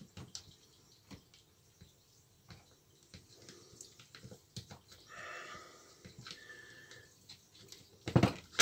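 Faint clicks and scrapes of a small tool prising a stuck carbon brush out of its holder in a hammer drill's motor housing. There is a short squeaky sound about five seconds in and a sharp knock near the end.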